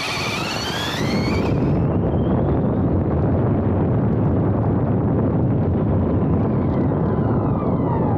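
Electric RC car heard from its onboard camera: the motor whine rises in pitch over the first second or two as the car accelerates, then dense wind and tyre rumble at speed, with the whine falling again near the end as it slows.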